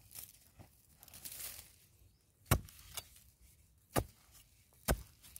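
A narrow metal digging spade chopping into dry, stony soil around wild yam tubers: three sharp strikes in the second half, with a lighter one between the first two. Before them, soft rustling of hands moving through soil and dry roots.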